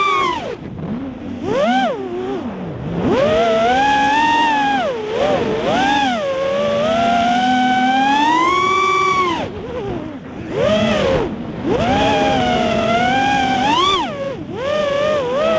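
Quadcopter's electric motors whining, the pitch swooping up and down continually and dropping sharply several times.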